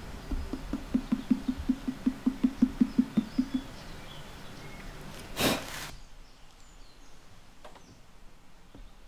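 A hand tapping the side of an upturned, unfired clay moon jar: a quick run of even, hollow low knocks, about five a second, for some three seconds. A short swish follows about five seconds in.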